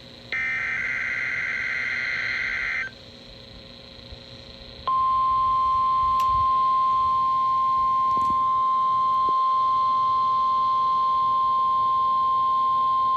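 NOAA Weather Radio test signal: a burst of SAME digital header tones lasting about two and a half seconds, then after a two-second pause the steady single-pitch 1050 Hz warning alarm tone, which starts about five seconds in and holds.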